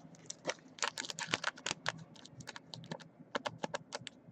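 Typing on a computer keyboard: an irregular run of quick key clicks, several a second, coming in flurries.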